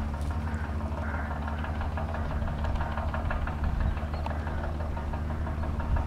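New Holland tractor's diesel engine running steadily under load, pulling a Kverneland reversible plough through the soil, with a light rattling over it.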